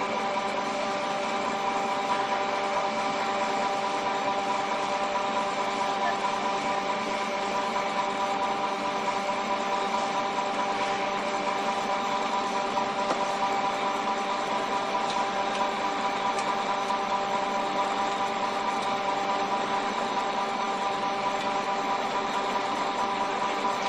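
Flat die animal feed pellet mill running steadily while pressing feed into pellets: a constant machine hum with several held tones over an even noise.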